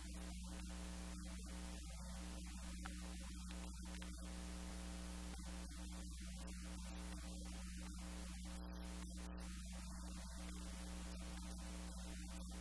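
Steady electrical mains hum, a low buzz with even overtones, over constant hiss, unchanging throughout.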